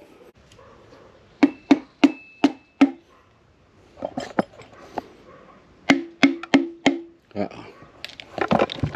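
A hammer handle tapping a piston down through a ring compressor into a Honda K24 block's bore: two quick runs of about five sharp knocks, each leaving a short metallic ring, with a few lighter taps between.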